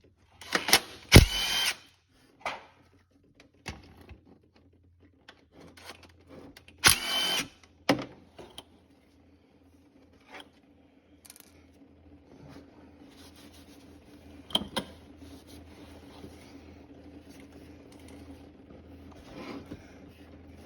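Cordless power tool whining in two short bursts, with sharp metallic clicks and knocks between, as the transmission pan bolts are worked loose.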